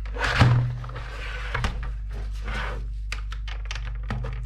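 A loud knock and scrape about half a second in, then a few light plastic clicks and scrapes, as the retaining tabs of a VDO instrument cluster's plastic housing are pried open. A steady low electrical hum runs underneath.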